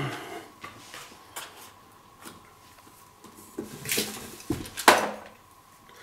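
Airless paint sprayer's plastic suction tube and intake filter knocking against a plastic paint bucket as it is lowered into the paint. A sharp click at the start, a few light ticks, then the loudest knocks about four and five seconds in.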